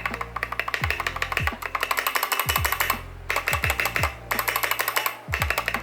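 Background music with an electronic beat: fast, even hi-hat ticks over deep bass-drum hits that fall in pitch, with short breaks in the pattern.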